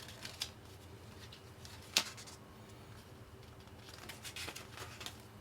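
Quiet handling of a paper quick start guide: light rustles and small clicks, with one sharp tap about two seconds in and a run of little taps near the end, over a faint steady hum.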